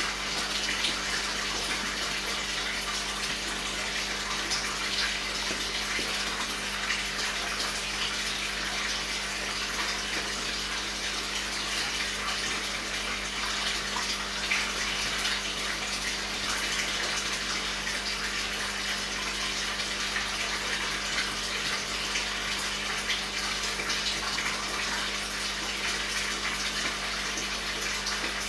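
Aquarium water running and splashing steadily, as from a filter or pump return, with a steady low hum underneath.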